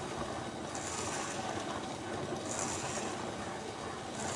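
Cycloid Pro epicycloid drawing machine running, its 3D-printed gears and turntable making a steady fast clatter. A short hiss comes back about every one and a half seconds.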